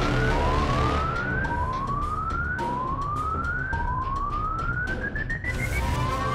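Siren sounding in repeated rising sweeps, each climbing for about a second and then dropping back to start again. The last sweep, near the end, climbs longer and higher. A low steady rumble runs underneath.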